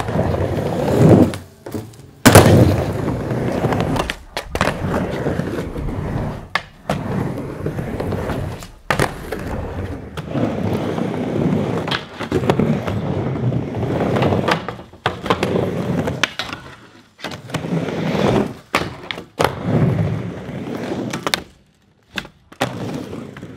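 Skateboard wheels rolling back and forth across a wooden backyard mini ramp, broken by grinds scraping on the coping and repeated sharp board slaps and landings on the wood. The loudest crack comes about two seconds in.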